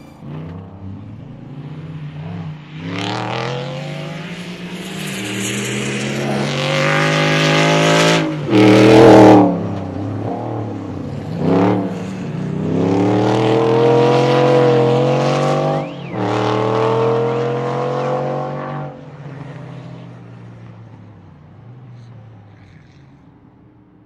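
Off-road rally car's engine revving hard under acceleration, its pitch climbing and dropping back several times as it shifts gears, loudest as it passes about nine seconds in. The engine note then fades away over the last few seconds.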